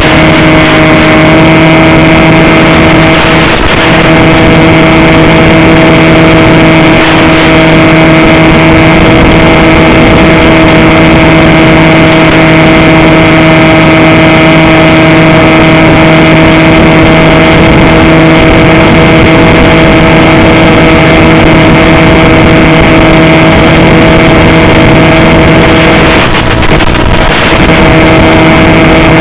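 Electric motor and propeller of a Bixler 2 RC plane running at a steady speed in flight, a constant drone under heavy hiss, loud and distorted as picked up by the onboard FPV audio. The drone dips briefly a few seconds before the end.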